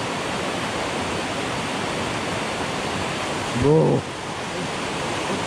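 Fast river rapids rushing over boulders: a steady, even noise of whitewater.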